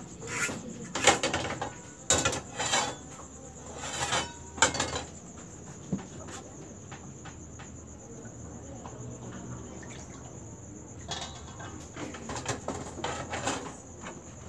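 Small metal frying pans clinking and knocking against the stove and each other as they are handled, busiest in the first few seconds and again near the end, over a steady high-pitched chirring.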